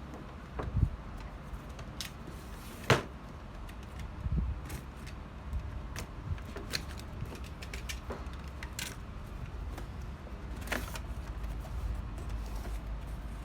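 Scattered clicks, taps and light knocks of objects being handled, over a low rumble. The sharpest knocks come about one and three seconds in.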